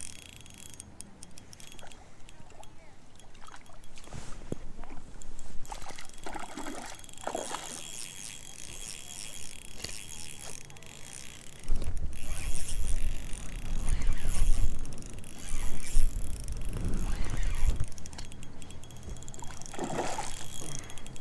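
Lake water lapping and splashing close to a float tube as it moves along. A louder low rumble on the microphone lasts several seconds about halfway through.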